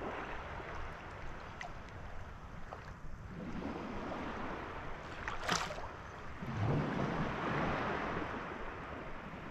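Shallow seawater sloshing and swishing close to the microphone, swelling twice, with one sharp tick about five and a half seconds in.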